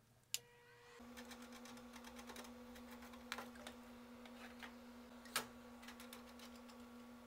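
A vintage Tektronix vacuum-tube oscilloscope humming steadily at one pitch, the hum starting about a second in just after a sharp click. Small clicks from its front-panel knobs and switches being worked are scattered over the hum, two of them sharper.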